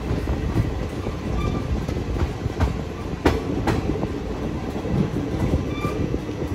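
Passenger train rolling slowly, heard from an open coach doorway: a steady wheel-and-rail rumble with a few sharp clacks as wheels cross rail joints, the two loudest about halfway through.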